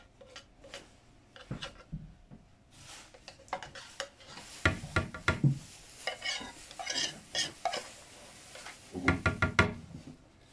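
Metal spoon scraping and clinking against the inside of a tin can of sweetened condensed milk to get the last of it out, with a quick run of taps about nine seconds in.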